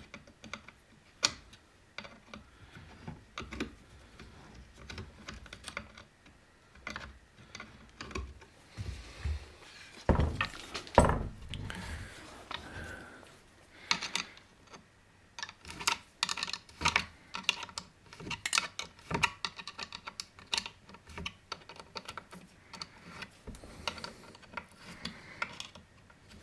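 Irregular small metallic clicks and taps of a wrench and screws being worked by hand while fastening a chainsaw's top handle, with a couple of louder knocks about ten seconds in.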